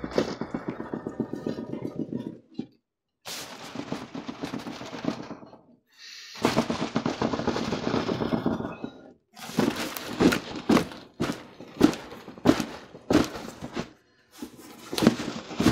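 Packing tape being torn off a cardboard shipping box in three long pulls, each a fast rattle of tiny clicks, then a run of separate sharp knocks and thumps as the cardboard box is handled and its flaps pulled open.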